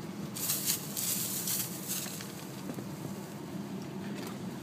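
Rustling and crackling in short bursts, loudest in the first two seconds, over a steady low hum.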